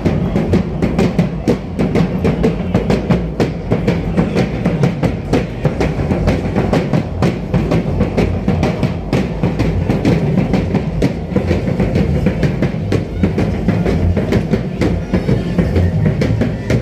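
Percussion of a street dance group: drums and clattering hand percussion keeping a fast, steady beat of dense clicks and thuds.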